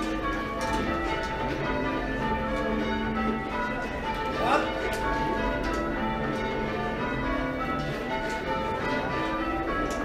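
Change ringing on a ring of six church bells (front five cast by Thomas Mears in 1804, tenor recast by Mears and Stainbank in 1935, about 8½ cwt in A-flat), the bells striking one after another in quick succession as heard from below the tower. A short rising chirp cuts through about halfway through.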